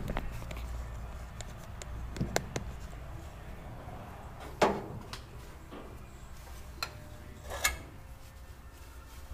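Scattered clicks and knocks of hand tools on metal as the timing chain cover of a small-block V8 is worked at to pry it loose, over a low steady hum; the loudest knock comes about halfway through.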